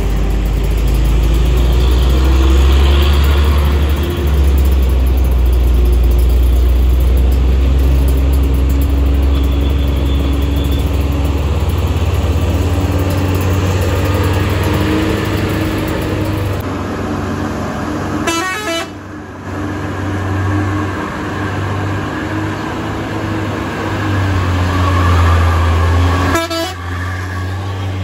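Heavy diesel truck engines running with a deep steady rumble, with vehicle horns sounding over them.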